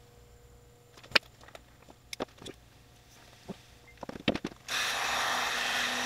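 Scattered light clicks and taps from handling wiring and small hand tools. Near the end comes a steady hiss of about a second and a half that stops abruptly.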